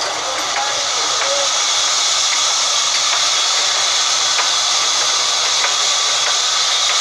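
Large belt-driven vertical band saw running: a steady high-pitched hiss that grows a little louder about a second in and then holds.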